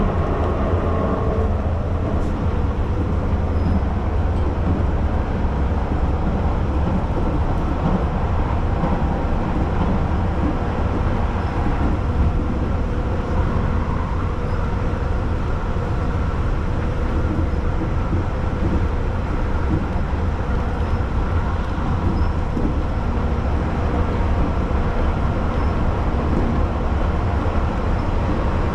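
Keihan Line commuter train running, heard from inside the car: a steady low rumble of wheels and motors with an even noise of the ride over it.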